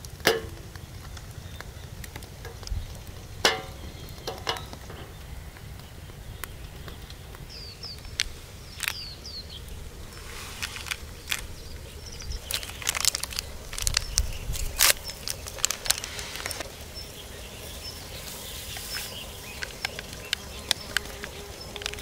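Wood campfire crackling with irregular sharp pops as it burns under a camping kettle. A few short high chirps come about 8 seconds in, and a fly starts buzzing near the end.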